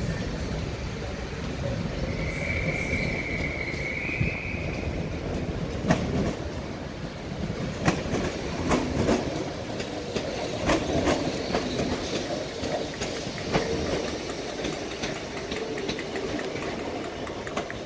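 A ScotRail electric multiple unit rolls slowly over pointwork with a low rumble. Its wheels give one high squeal about two seconds in, lasting about two seconds. From about six seconds in, the wheels clack irregularly over rail joints and points as the carriages pass close by.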